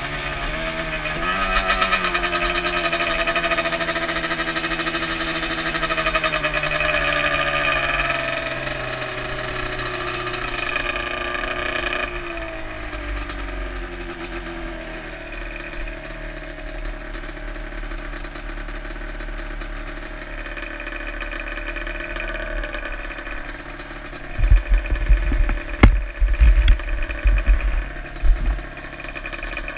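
Yamaha Banshee's two-stroke twin engine running as the quad rolls along, its pitch falling as it slows, then idling low once stopped. Near the end, loud irregular thumps and rubbing from a gloved hand handling the helmet camera.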